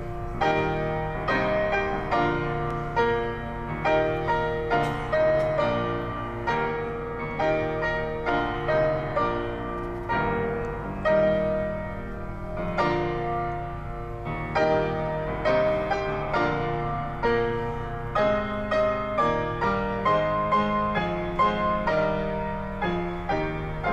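Solo grand piano played live: a classical piece of struck notes and chords, each ringing and fading, at a moderate pace.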